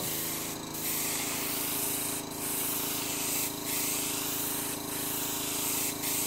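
Airbrush spraying paint in a steady hiss, with short breaks every second or two where the trigger is let off between passes. A steady low hum runs underneath.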